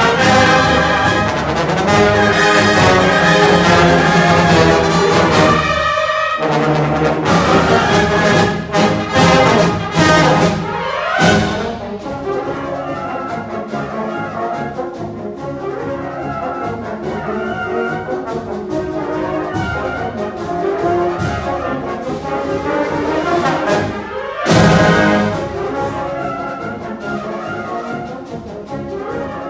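Concert band playing a fast circus march with brass to the fore. The loud full band gives way to a quieter passage about twelve seconds in. Upward trombone smears come at about eleven seconds and again with a short loud burst at about twenty-four seconds.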